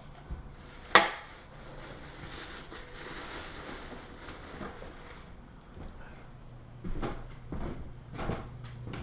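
Handling noises: one sharp knock about a second in, a stretch of soft rustling, then several dull knocks near the end over a low steady hum.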